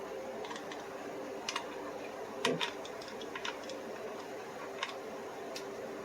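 Light, irregular clicks and taps of a precision screwdriver working the screws of a knife sheath, a dozen or so scattered ticks with the loudest cluster about two and a half seconds in, over a steady hum.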